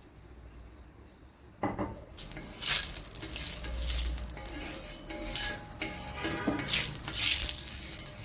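A knock about a second and a half in, then cooking oil hissing and sizzling on a hot tawa griddle as it is poured and spread across it, in uneven surges.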